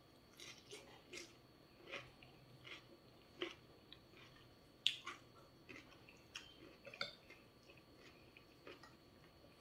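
Faint chewing and mouth sounds of a person eating boiled vegetables in peanut sauce, with scattered light clicks and one sharper click about five seconds in.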